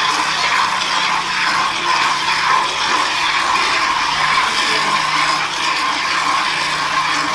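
Steady machine noise: a continuous whirring with a low hum underneath, unchanging in level and pitch.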